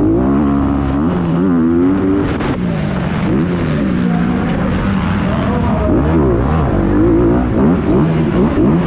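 Dirt bike engine revving up and down as the throttle is worked through the corners and straights, its pitch rising and falling over and over, with quick short blips near the end. Heard from the rider's helmet.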